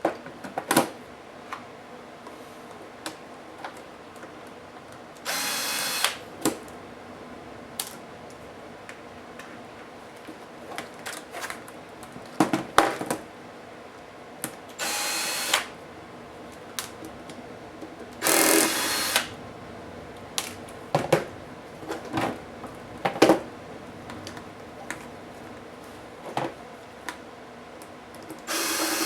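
Small electric screwdriver running in short bursts of about a second, four times, backing out laptop screws, with sharp clicks and taps of screws, tools and plastic parts being handled in between.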